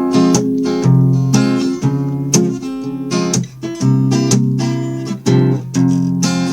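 Acoustic guitar strumming chords in a steady rhythm, an instrumental introduction with no singing.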